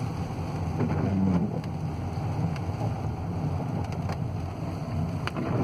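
Car engine and tyre noise on a wet road, heard from inside the cabin while driving in the rain: a steady low rumble.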